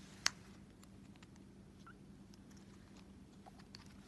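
Faint, scattered soft pops of a silicone pop-it fidget toy's tiny bubbles being pressed in, with one sharper click just after the start.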